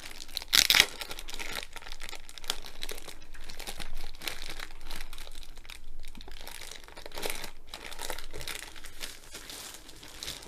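Clear plastic bag crinkling and crackling as it is torn open and worked off a rolled canvas. There is a sharp, loud crackle about half a second in, then irregular rustling crinkles.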